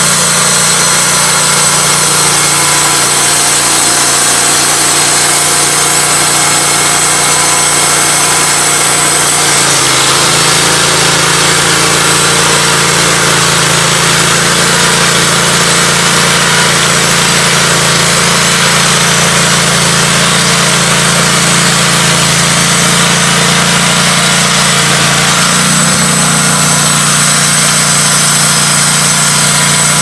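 Gas engine of a Wood-Mizer LT15 Go portable bandsaw mill running steadily. About ten seconds in, its note changes and a hissier sawing sound joins it for some fifteen seconds as the band blade runs through a hemlock log, then it settles back to the plain engine sound.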